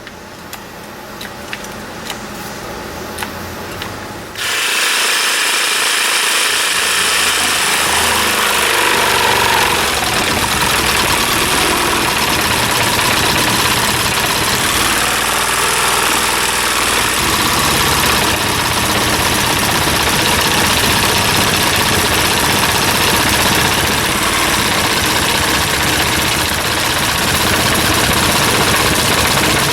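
A few light handling clicks, then an electric jigsaw starts suddenly about four seconds in and runs steadily while cutting through a board for a 45-degree miter joint.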